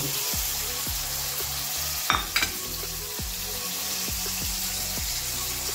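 Hot oil sizzling steadily in a pan after onion, green chillies, cumin, garlic and tomato have gone in, with two sharp clicks a little over two seconds in.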